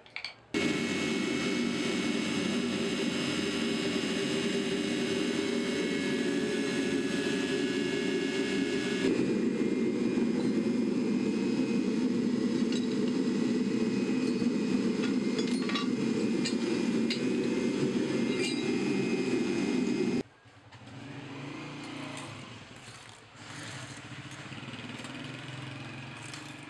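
Air blower on a charcoal-fired crucible furnace for melting aluminium, running with a steady loud whir and faint ticks over it. It cuts off abruptly about twenty seconds in, leaving quieter uneven sounds.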